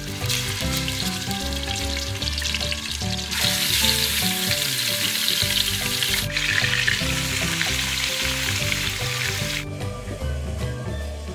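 Lamb chunks sizzling in hot oil in a heavy pot, with background music underneath. The sizzle grows louder about three seconds in and cuts off near the end.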